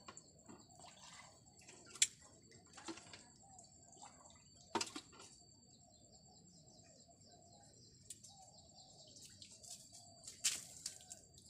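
Quiet outdoor ambience with a steady high-pitched whine and faint bird chirps, broken by a few sharp clicks and light splashes from a small child playing with water in a plastic scoop. The loudest click comes about two seconds in.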